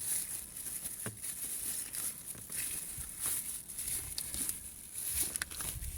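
Thin cellophane film crinkling and tearing as the excess is pulled off by hand along a car door handle, with a few light clicks.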